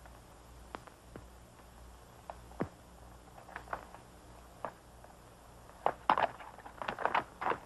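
Horse hoofbeats: a few scattered clops, then from about six seconds in a quicker, louder run of hoof strikes, over a faint steady hum and hiss.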